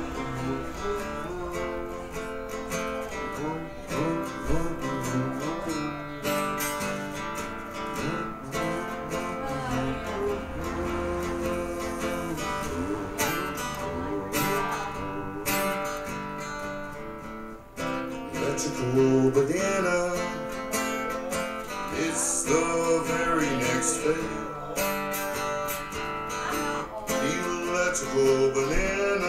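Live music led by strummed acoustic guitar, with a melodic line bending in pitch over it.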